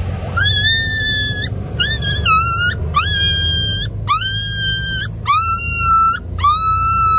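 Terrified puppy screaming in fear as it is touched: about seven long, high-pitched cries in a row, each rising sharply at the start and then held, with short breaks between.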